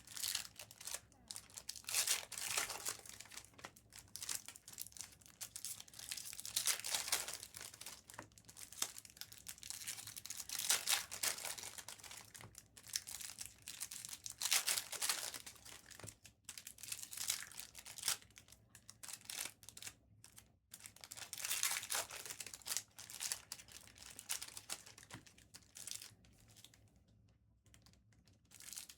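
Trading-card pack wrappers crinkling and tearing as packs are ripped open and the cards handled, in irregular bursts a few seconds apart.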